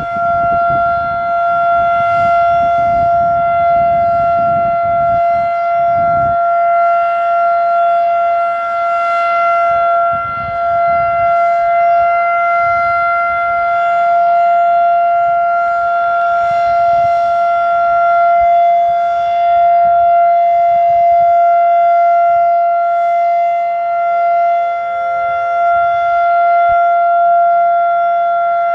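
Federal Sign & Signal Model 5 electromechanical outdoor warning siren sounding its steady full-alert signal: one sustained tone that holds its pitch, with a strong overtone an octave above.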